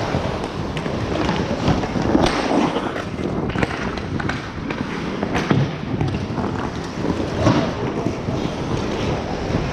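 Ice hockey play: skates scraping and carving on the ice, broken by irregular sharp clacks and thuds of sticks, puck and boards.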